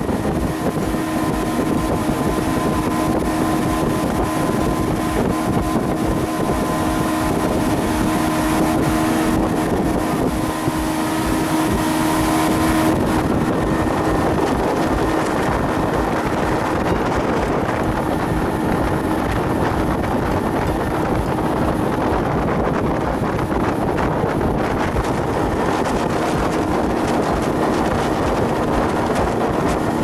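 Pontoon boat's motor running steadily under way, with wind buffeting the microphone. A few steady hum tones over the noise fade out about halfway through.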